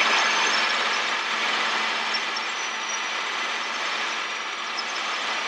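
Cabin noise of a Robinson R22 Beta II helicopter in cruise flight: the steady drone of its four-cylinder Lycoming piston engine and rotor. It eases slightly over the first couple of seconds and then holds even.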